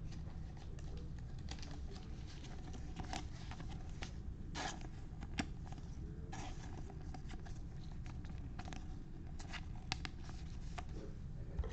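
Trading cards being handled: soft scattered clicks and rustles of cards slid, flipped and set down, over a faint steady low hum.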